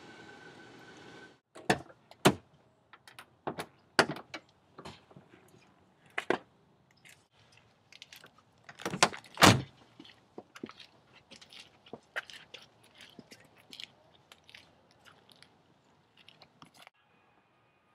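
Car door handling and footsteps on asphalt: a string of sharp clunks and knocks, the loudest a double knock about nine and a half seconds in, then lighter ticks and steps. A steady background hiss and hum cuts off suddenly about a second and a half in.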